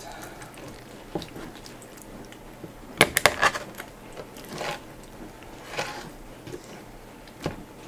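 Sharp knife cutting through a raw chicken's breastbone: a quick run of cracks about three seconds in, then softer wet slicing and squishing, and one click near the end.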